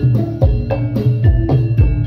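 Javanese gamelan music of the kind played for a Jathilan dance: a steady beat of drum strikes about twice a second under ringing, bell-like metallophone notes.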